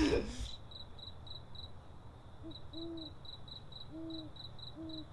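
Crickets chirping in a fast, even pulse of about five high chirps a second, pausing briefly near the middle, while an owl hoots a few low, rounded notes in the second half.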